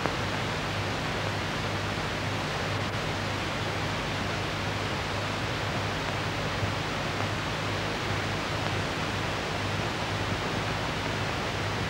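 Steady hiss with a low mains-like hum underneath and no other sound: the background noise of an old film soundtrack.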